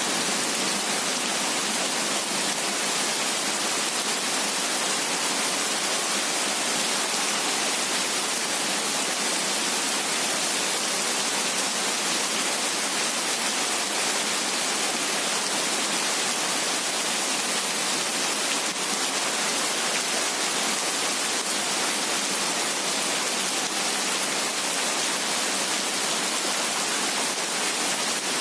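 Heavy rain falling: a steady, even hiss, bright and high with almost no bass.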